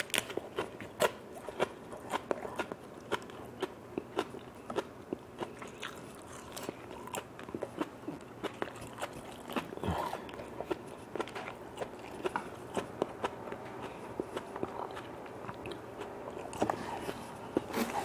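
A person eating, biting and chewing crunchy food, with many short, crisp crunches at an irregular pace.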